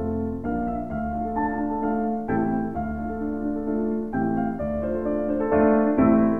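Background piano music: a gentle tune of notes and chords changing about every half second.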